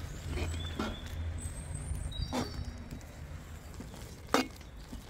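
A spatula stirring a grain mixture in a large aluminium pot, knocking sharply against the metal a few times, the loudest knock about four seconds in. A steady low rumble runs underneath, with thin high bird chirps in the first half.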